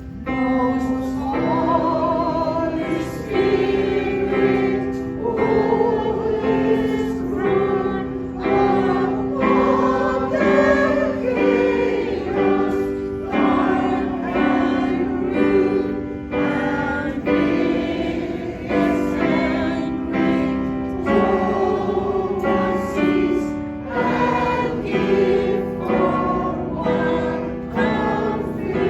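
A choir singing a song together in parts, with held notes moving step by step.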